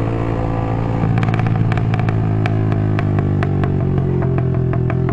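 Suzuki Intruder 125's single-cylinder engine running steadily while riding. From about a second in, irregular sharp ticks and clicks sound over it.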